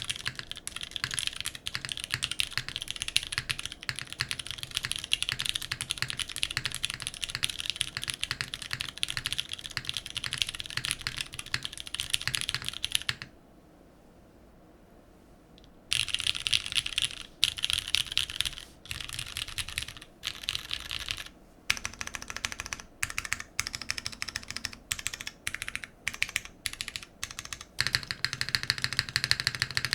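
Typing on a Singa RAT Unikorn mechanical keyboard with vintage Cherry MX Brown switches, a carbon fibre plate and GMK keycaps: a steady rush of keystrokes. It stops for about three seconds near the middle, then comes back as slower, spaced-out strokes that speed up again near the end.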